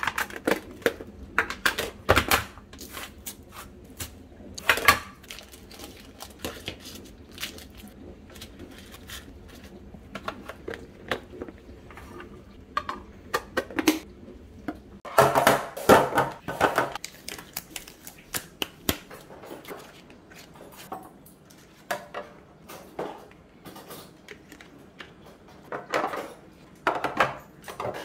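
Plastic food-storage containers and their lids being handled: irregular clicks, taps and knocks, with a denser clatter around the middle.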